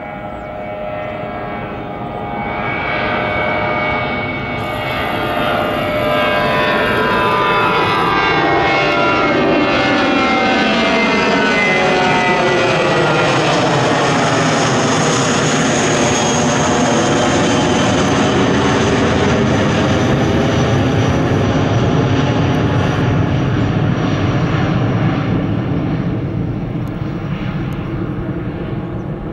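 Airbus A320 with IAE V2500 turbofans climbing out on departure and passing overhead. The jet noise builds to a loud, steady rumble, its engine whine tones sliding down in pitch as the aircraft goes past, then eases off a little as it flies away.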